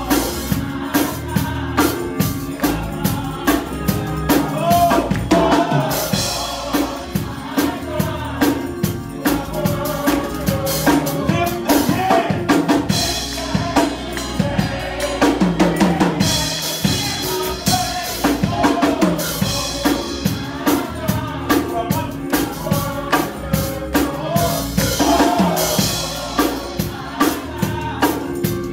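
Live gospel praise music: a drum kit keeping a steady, driving beat with voices singing over it.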